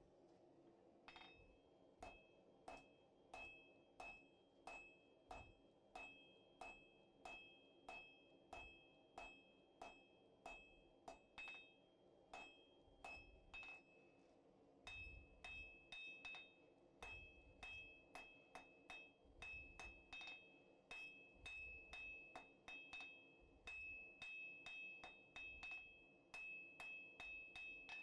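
Hand hammer striking a hot 3/8-inch round steel bar on an anvil, drawing out a square taper. Even blows at about two a second, with a high ring carrying between them and a short break about halfway.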